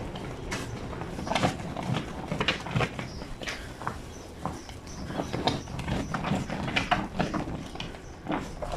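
Wet blanket being worked by hand on a granite washboard sink: irregular wet slaps and squelches, a few each second.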